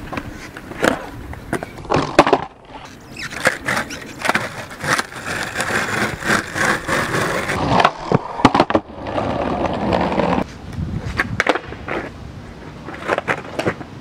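Skateboard wheels rolling over rough asphalt with a gritty rumble, broken by a series of sharp clacks as the tail pops and the board lands during flip tricks. The rolling stops suddenly about ten seconds in, and only scattered clacks follow.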